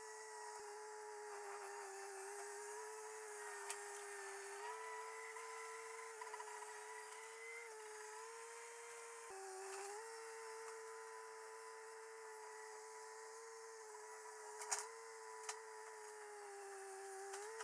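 A steady motor whine that shifts a little up and down in pitch now and then, with a few sharp clicks, two of them near the end.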